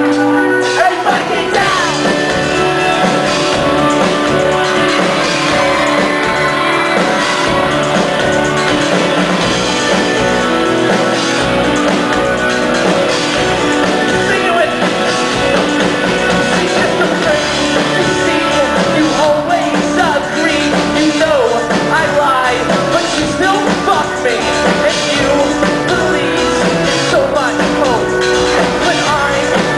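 Live rock band playing at full volume, with a lead singer over guitar and drums, recorded from the audience.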